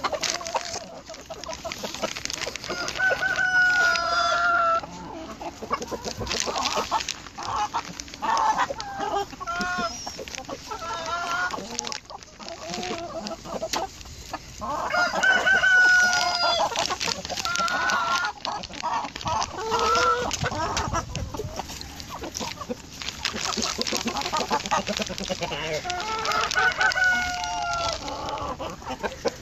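A flock of mixed-breed chickens clucking steadily, with a rooster crowing three times, roughly every eleven seconds.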